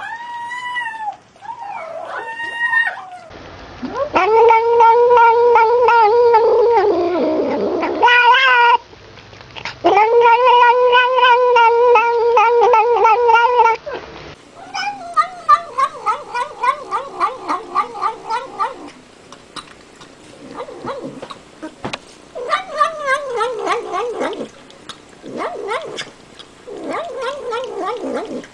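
Cat yowling: two long drawn-out calls of about four seconds each, followed by a run of shorter meows.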